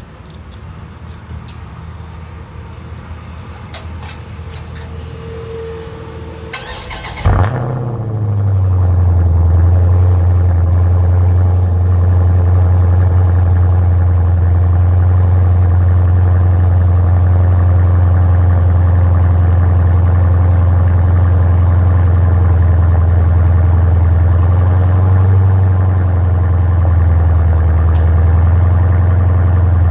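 Dodge Challenger cold start through an exhaust with the mid muffler deleted and a Vibrant 1794 fitted: about seven seconds in, the engine cranks and catches with a short loud burst. It then settles into a loud, steady idle with a deep drone.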